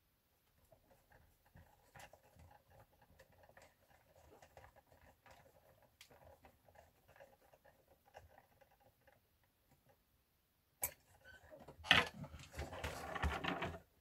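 Faint, scattered ticking of a small screwdriver working a screw on a plastic radio-controlled model truck, then about twelve seconds in a louder clatter of the plastic model and parts being handled on the bench.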